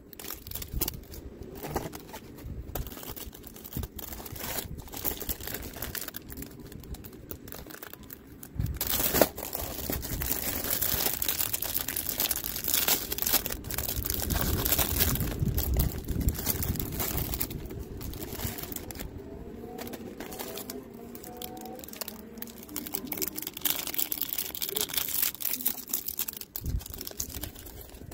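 Plastic packaging crinkling and tearing as a multipack of chocolate snack cakes is opened and the individually wrapped cakes are handled, getting louder about nine seconds in.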